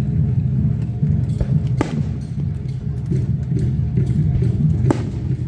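Fireworks display: a low rumble under music, with two sharp firework bangs, about two seconds and five seconds in.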